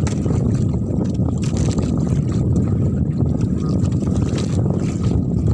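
Steady low rumble of wind and sea around a small outrigger fishing boat on open water.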